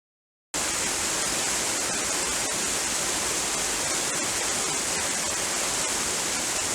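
A steady, even rushing hiss that starts abruptly out of dead silence about half a second in, strongest in the high range.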